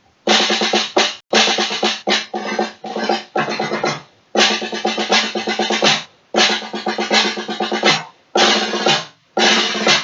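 Drum played in fast strings of strokes, like rolls, in phrases of a second or two with short breaks between them.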